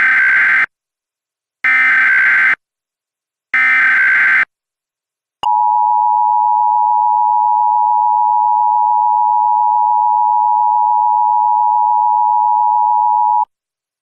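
Emergency Alert System tones: three short bursts of the SAME digital header, about a second each with short gaps, then the steady two-tone EAS attention signal for about eight seconds. The header encodes an Emergency Action Notification.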